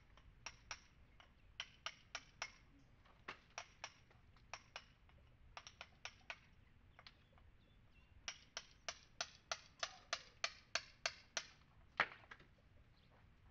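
Hammer striking a cold chisel, chipping old mortar out of a stone wall. The sharp metal taps come in irregular pairs, then speed up to about three a second from about eight seconds in, with the loudest strike near the end.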